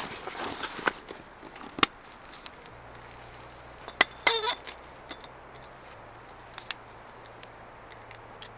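Camping gear handled by hand: rustling and clicks from a canvas gear bag with metal hooks and lanterns in it, then about four seconds in a sharp metal click and a short metallic ring as a steel lantern hanger is fitted onto a tarp pole, followed by a few faint clicks.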